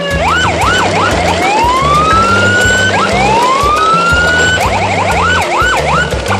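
Electronic police-style siren cycling through its patterns: quick up-and-down yelps, two long rising wails, a fast warble near five seconds in, then more yelps, over background music with a steady bass line.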